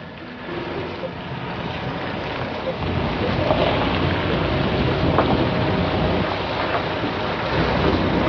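Heavy tractor-trailer truck rolling slowly past with its engine running, growing louder about three seconds in, with wind noise on the microphone.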